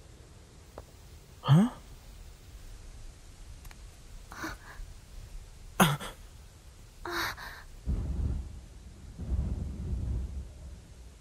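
A dubbing voice actor's breaths and sighs: a short voiced sigh with a rising tone about one and a half seconds in, then a few breaths and a sharp intake like a gasp near six seconds. Near the end come two low, muffled rumbles.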